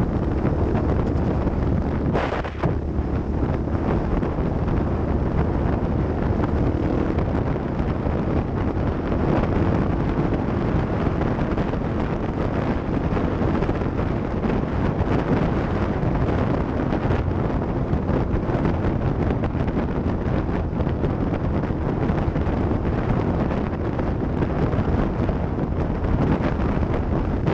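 Off-road vehicle driving, its engine a steady hum under heavy wind noise buffeting the microphone.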